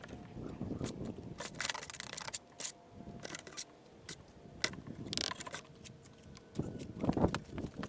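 Sped-up work sounds of stone arch building: a jumble of quick clicks, knocks and scrapes of stone and tools.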